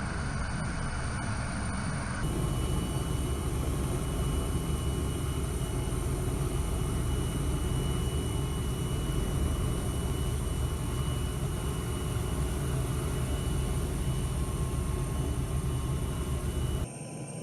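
Steady low mechanical rumble with a few constant high whines, like aircraft engine noise, changing abruptly about two seconds in and again near the end.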